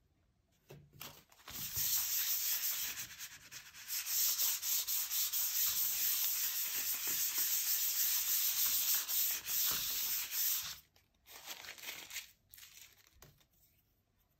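Continuous rubbing and scraping, like something being slid or wiped hard across a surface, for about nine seconds from about a second and a half in, then a few short rustles near the end.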